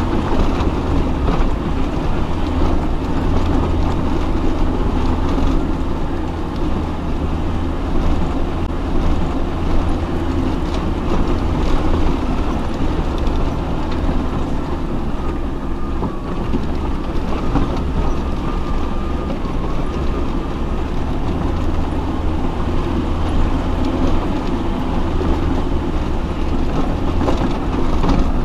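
Off-road 4x4 crawling over a rough, rocky track. Its engine runs steadily at low speed under load, over a continuous low rumble, while the vehicle knocks and rattles over the rocks.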